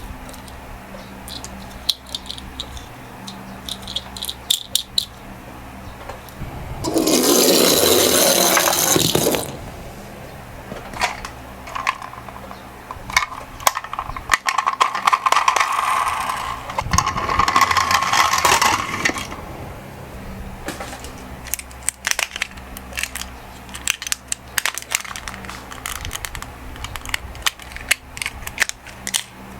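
Die-cast toy minicars running down a slope track, with many sharp small clicks and clatters of metal and plastic, and a loud rattling rush lasting about two seconds some seven seconds in.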